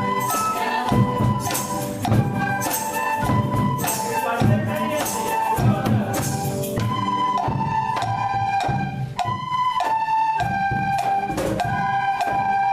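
Instrumental music: a sustained melody line over fast shaker-like percussion, the percussion dropping back about seven seconds in.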